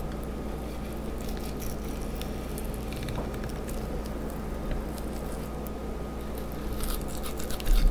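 Knife slicing the pin bones out of a raw trout fillet on a cutting board: light scrapes and small taps over a steady hum, with a soft thump near the end.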